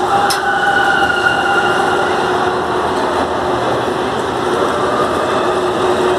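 Electric bumper cars driving around the rink: a loud, steady rumble and whine of their motors and wheels, with one sharp knock about a third of a second in.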